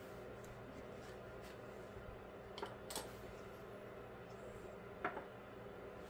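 Faint clicks and taps of small plastic parts being handled: a glue-brush cap and model tire halves worked over a tabletop, with a few sharper clicks in the middle and one about five seconds in, over a steady low room hum.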